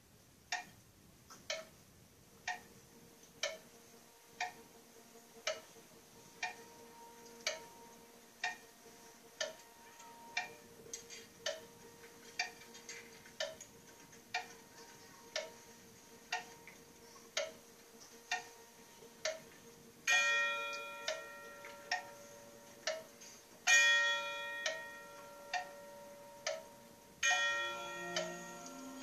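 Marching band's front-ensemble percussion playing a soft passage: a steady clock-like tick struck about once a second. In the last third it is joined by three loud, ringing strikes on chimes (tubular bells).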